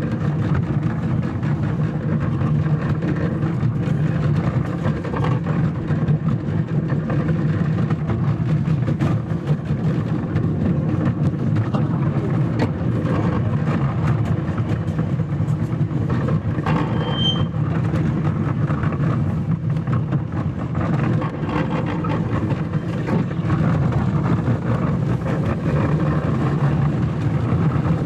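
Engine of a small park ride train, styled as a diesel locomotive, running steadily with a low drone and light ticking and rattling. There is one brief high squeak a little past the middle.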